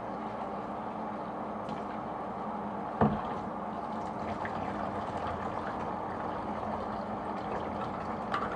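Tap water running steadily while humidifier parts are washed in it, with a single knock about three seconds in as a part is handled.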